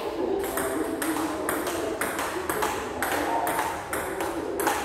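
Table tennis rally: a quick, even run of sharp ball clicks, about four a second, as the celluloid ball alternately bounces on the table and is struck by the paddles, one of them with pimpled rubber.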